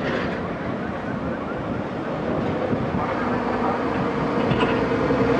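Airliner's engines running after a landing, a steady rumble and noise with a hum that grows stronger and a little louder about halfway through.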